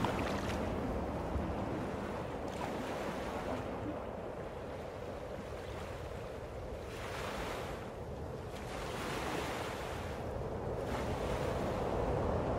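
Rushing wind noise that swells and fades several times, with no motor or propeller whine heard.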